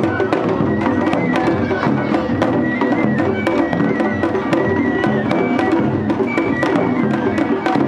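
Japanese festival music, matsuri-bayashi: fast, steady drum and wood-block-like strokes under a high melody of held notes.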